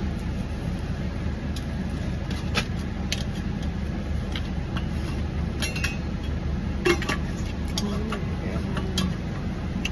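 Steady low hum of a car idling, heard inside the cabin. Over it come scattered light clicks and knocks as plastic drink cups and a tumbler lid are set down and handled, the sharpest about seven seconds in.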